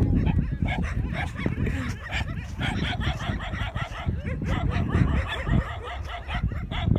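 German Shepherd dog barking repeatedly and aggressively, over a heavy low rumble.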